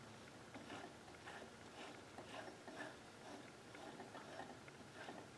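Faint, light clicking, about two clicks a second, as a mini lathe's chuck and gear train are turned slowly by hand to rotate a chainsaw cylinder.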